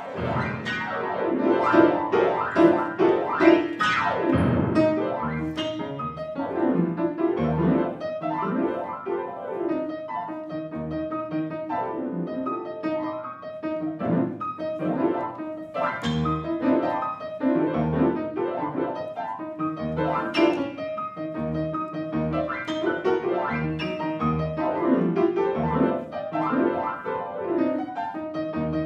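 Grand piano playing a contemporary concert piece: fast sweeping runs in the first few seconds, then low bass notes struck again and again under a repeating middle-register figure.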